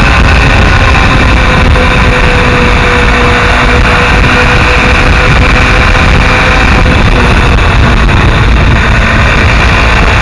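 Mondial SMX enduro motorcycle under way on the road, slowing from about 90 to 73 km/h, its engine note falling slightly. Heavy wind rush on the bike-mounted microphone covers much of it.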